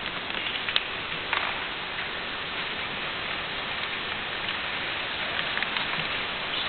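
Steady hiss of background noise, with a few faint short clicks.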